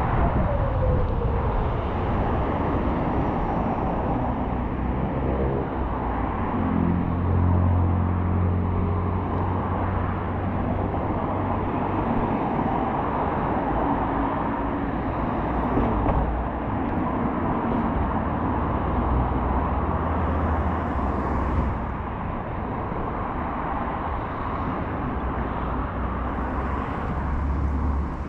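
Road traffic: a steady wash of passing vehicles, with one going by right at the start, its pitch falling, and a heavier engine drone from about six to ten seconds in.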